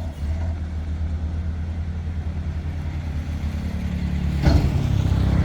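Heavy diesel machinery engine running steadily at a low note; about four and a half seconds in there is a brief clatter and the engine gets louder, as if put under load or revved.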